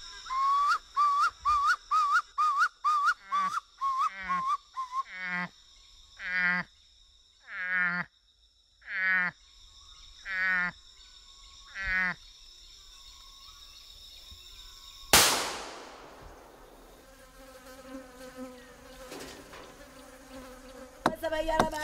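A man blows a leaf call held in his cupped hand: a quick run of short rising squeaks, about three a second, then six longer wavering calls that each fall steeply in pitch. Forest insects drone steadily throughout. About fifteen seconds in comes a single loud, sharp bang that dies away.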